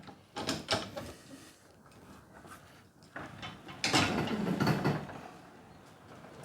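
Sectional garage door moved by hand on its tracks: a few short knocks and rattles about half a second in, then a longer run of rollers rumbling along the steel track with the panels rattling, from about three seconds in to five and a half.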